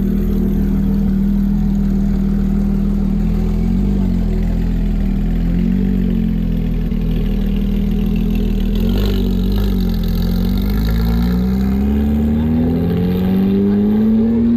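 Car engine running at a steady idle with a few short throttle blips, then the revs climb over the last few seconds.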